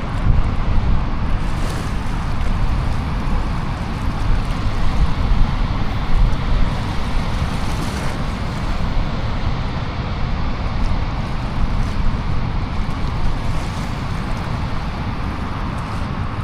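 Steady rush of water pouring through a dam spillway, with wind buffeting the microphone.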